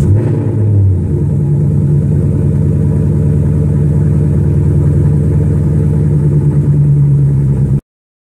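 2018 Mustang GT's 5.0-litre V8 catching and flaring briefly on its first start after a freshly flashed performance tune, then settling into a steady idle, heard from inside the cabin. The sound cuts off abruptly near the end.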